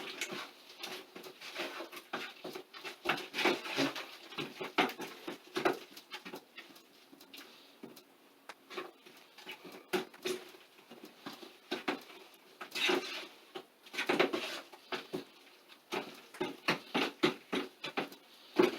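Popcorn ceiling texture being stirred by hand with water in a bucket: irregular wet scraping and slopping strokes, coming in bursts with a couple of short pauses.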